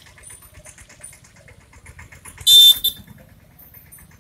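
Horn of an Indian Railways EMU local train: one short, loud, high-pitched blast about two and a half seconds in, over a faint low rumble.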